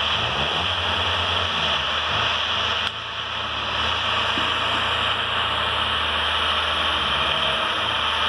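Diesel engines of forestry machinery, an Ecolog 688E harvester working with a Twinch traction-assist winch, running steadily: a constant low drone under an even hiss, with a short dip in level about three seconds in.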